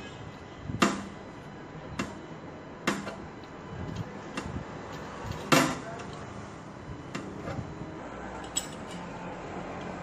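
A metal hand tool clicking and clinking against the copper charging line on a refrigerator compressor as the line is cut: about five sharp metallic clicks with smaller ticks between, the loudest just over five seconds in. No hiss of escaping gas.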